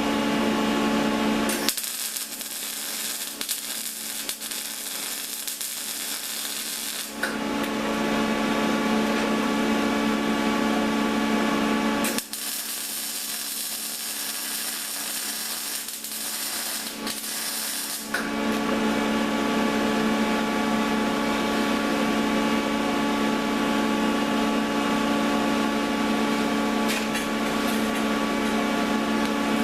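Electric arc welding: two welds of about five and a half seconds each, the arc giving a steady hissing crackle. Between the welds a steady hum is heard.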